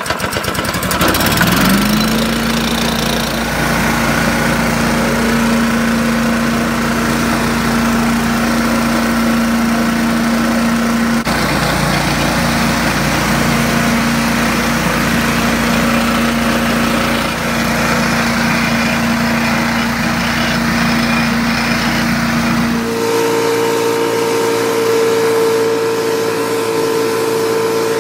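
Powermate PWB163150E walk-behind leaf blower's 163cc four-stroke engine on its first start: it catches on the pull, spins up over about two seconds, then runs at a steady speed with the rush of the fan. Near the end the note jumps abruptly higher and steadier.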